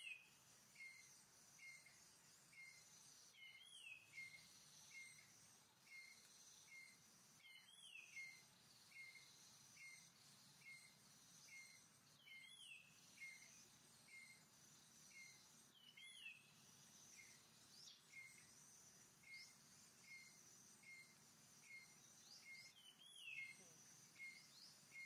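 Faint forest ambience: a bird repeats a short call note about twice a second, a louder rising-and-falling call comes every few seconds, and insects keep up a steady high hum.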